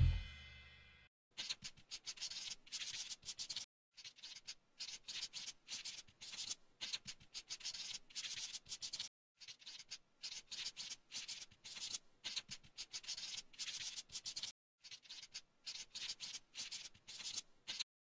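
Felt-tip marker writing on spiral-notebook paper: faint scratchy strokes in quick runs, broken by short pauses between words. The writing starts about a second in and stops just before the end.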